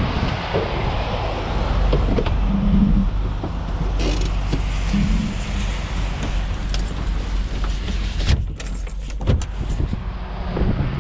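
A truck engine running steadily, with a few sharp clicks and knocks about eight to nine and a half seconds in.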